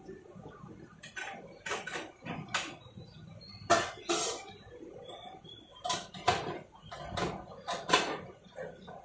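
Metal idli plates clinking and clanking as they are stacked onto the idli stand inside a pressure cooker, then the cooker's metal lid set on; about a dozen separate clanks, the loudest about 4 s and 8 s in.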